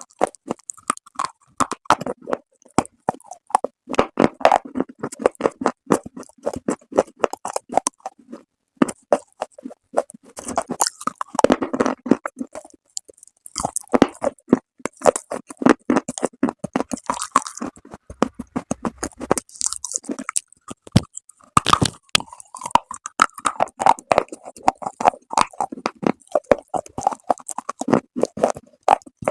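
Close-up crunching and chewing of dry, brittle clay pieces: rapid crackling snaps as the chunks are bitten and ground between the teeth, with a short pause about halfway through.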